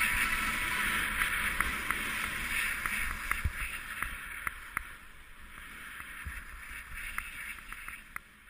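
Skis sliding and scraping over groomed snow: a steady swishing hiss with scattered small clicks and a low rumble, gradually getting quieter.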